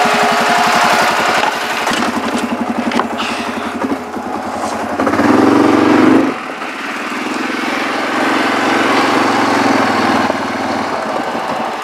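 ATV engine running while riding, with a short louder burst of throttle about five seconds in, then easing off near the end.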